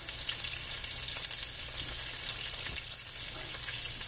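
Pork steak frying in canola oil in a stainless steel pan: a steady sizzle with small scattered crackles.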